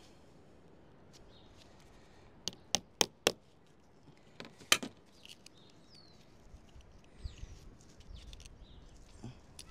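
A handful of sharp knocks: four in quick succession a couple of seconds in, then a single louder one about a second later. Faint bird chirps sound around them.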